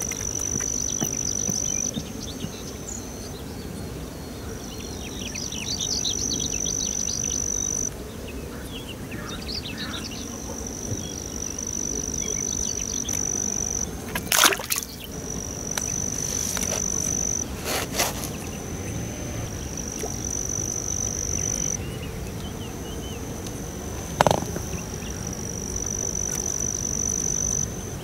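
An insect singing a steady, high-pitched buzz in phrases of about two to three seconds, broken by short pauses, with faint short chirps in the first third. Three sharp clicks stand out over it, two in the middle and one near the end.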